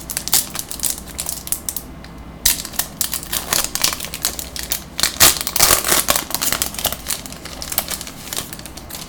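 A trading-card pack's plastic wrapper being torn open and crinkled by hand, with rapid crackling that gets thickest from about two and a half seconds in.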